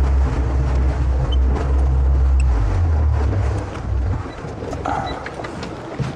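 Boat engine running under power with a deep, steady hum, then throttled back about four seconds in, leaving wind and water noise.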